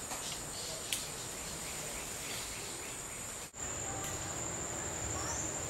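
Steady high-pitched drone of jungle insects, with a few faint chirps and a single sharp click about a second in. The sound cuts out for an instant a little past halfway, then the drone carries on.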